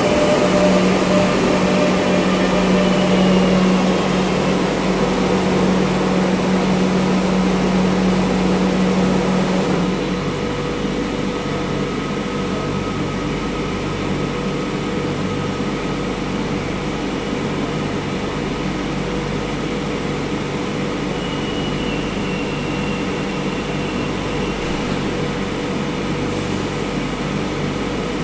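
Madrid Metro series 7000 train pulling in and coming to a stop, with a steady low hum from its drive that cuts off about ten seconds in. After that comes the steady hum of the standing train's ventilation and auxiliary equipment.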